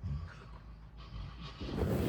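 A person snoring over the steady noise of a fan, with low rumbling breaths and a louder low burst near the end.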